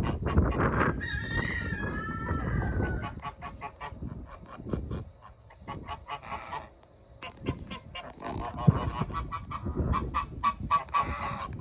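Goose honking, many short calls in quick runs, with a longer drawn-out call about a second in.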